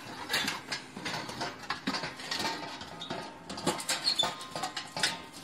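Wire guard and metal top of a kerosene heater rattling and scraping against the heater body as they are fitted back on, a run of irregular light clicks and scrapes.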